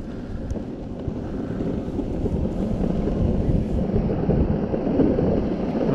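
Meepo Mini 2 electric skateboard rolling fast on asphalt: a rough wheel-and-road rumble mixed with wind buffeting the microphone, growing louder as the board picks up speed.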